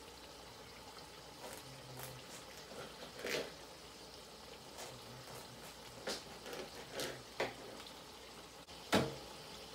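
Ground beef browning in a pot with a faint steady sizzle, broken by several knocks and clinks, the loudest about nine seconds in.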